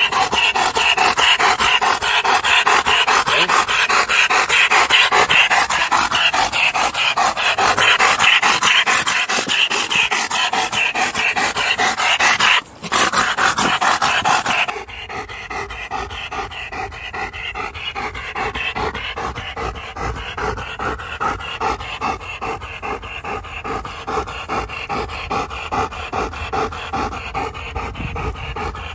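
German Shepherd panting hard and fast in a quick, even rhythm of breaths. About halfway through it becomes noticeably quieter.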